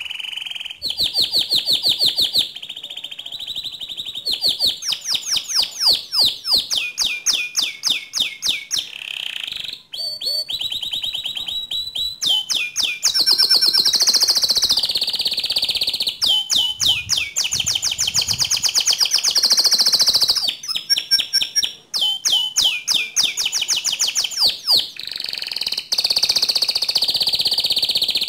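Domestic canary singing a long, continuous song of fast repeated trills and rolls, shifting every second or two from one run of rapid chirps to the next, with two brief breaks.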